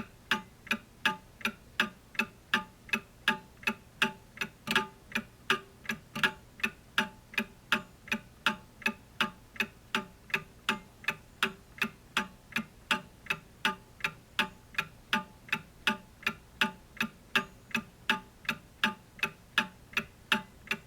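Clock ticking steadily, about three ticks a second, with one slightly louder tick about five seconds in.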